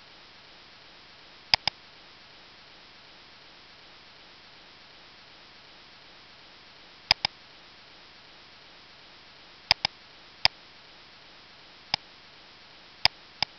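Computer mouse clicking: scattered sharp clicks, several of them in quick pairs, over a steady faint hiss of microphone noise.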